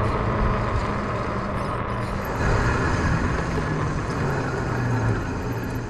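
Riding noise from an e-bike moving along a city street: a steady rush of wind on the microphone and tyres on asphalt, with a low engine hum from traffic.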